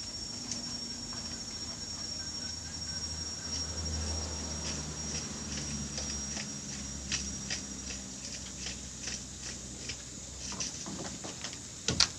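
A steady, high, thin insect drone that fades out about two-thirds of the way through. Over it, from about four seconds in, comes a scatter of sharp clicks and taps, with a couple of loud knocks near the end.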